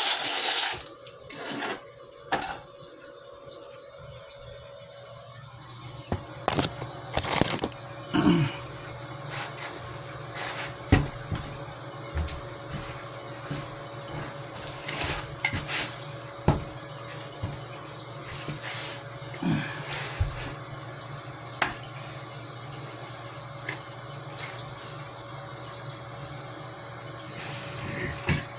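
Water running from a tap into a sink, with scattered clinks and knocks against it.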